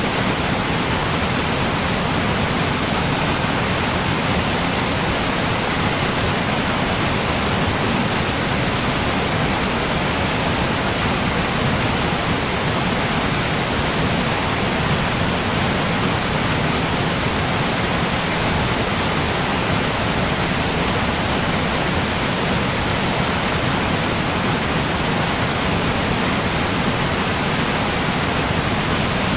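A large waterfall: water falling in a loud, steady rush.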